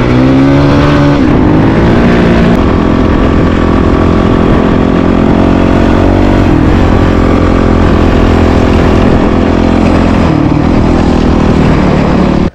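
Honda CRF450RL's single-cylinder four-stroke engine running under way on the move. Its pitch dips and rises about a second in and shifts again around six and ten seconds in as the throttle changes. The sound cuts off suddenly at the end.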